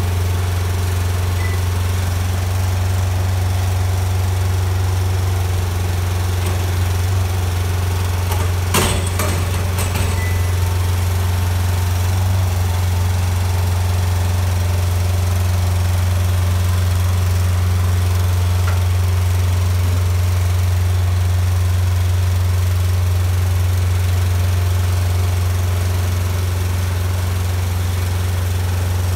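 Side lifter's engine running at a steady low drone, powering the hydraulic cranes that are raising a refrigerated shipping container. A short run of knocks about nine seconds in.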